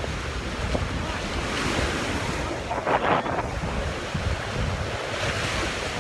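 Sea waves washing on the shore, the surf hiss swelling and fading twice, with wind buffeting the microphone as a low rumble.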